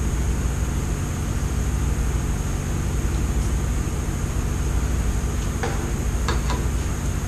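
Steady drone of a mechanical fan with a low hum under it, and a few faint clinks of a spoon against a skillet about six seconds in.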